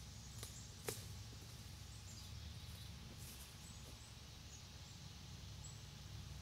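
Quiet woodland ambience: a low rumble with faint, short, high bird chirps scattered throughout, and a single sharp snap about a second in.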